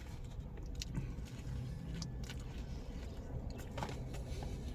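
Faint chewing and small mouth clicks from someone eating a slice of pizza, over a steady low rumble.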